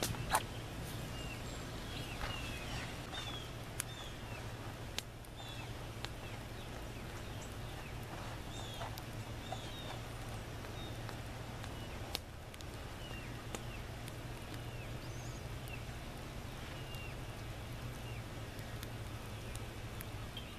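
Small birds chirping again and again over a steady low hum, with a few sharp crackles as straw and wood kindling catches fire in a clay earth oven.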